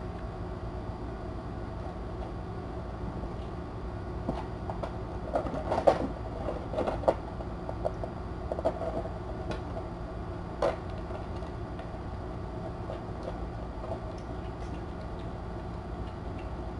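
Steady low hum and hiss of room noise, with scattered soft knocks and scratches in the middle stretch, the loudest about six seconds in and another near eleven seconds, from kittens tussling against a cardboard castle and toys.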